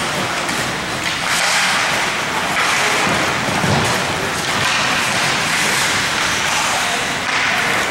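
Ice hockey play in an arena: a steady scraping hiss of skates carving the ice that swells and fades, with a low thud about three and a half seconds in as play reaches the boards.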